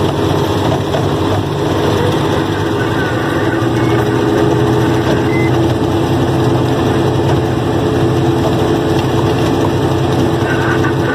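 Heavy truck's diesel engine running steadily, heard from inside the cab as the truck drives on.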